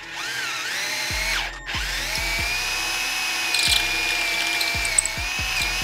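Power drill boring out the chain adjuster bolt hole in an aluminium swing arm with a long 3/8-inch bit. It winds up, stops briefly about a second and a half in, then runs steadily at an even whine.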